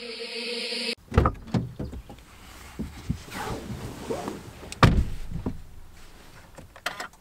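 A glitchy static-like sound effect that cuts off about a second in, then a person settling into a car's driver's seat with scattered knocks and rustling. The driver's door shuts about five seconds in, the loudest sound.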